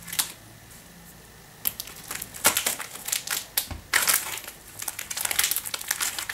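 Plastic wrappers of a strip of individually wrapped wafer bars crinkling irregularly as the strip is handled. The crinkling starts after about a second and a half of quiet.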